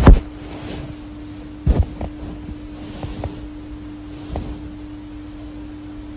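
A steady low hum, with a loud knock at the start, another about two seconds in, and a few fainter knocks.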